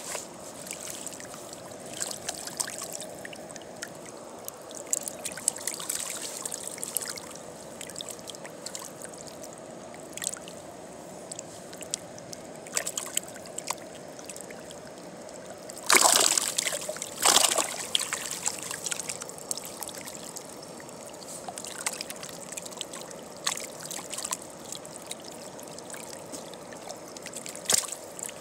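River water running steadily through a shallow riffle, with scattered small clicks and two louder bursts of noise about sixteen and seventeen seconds in.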